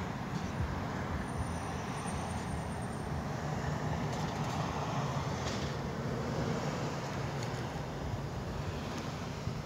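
Steady low rumble and hiss of distant road traffic, swelling a little about halfway through.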